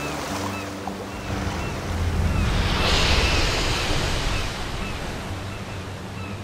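Ocean surf sound effect: a steady wash of waves that swells into a louder rush about three seconds in.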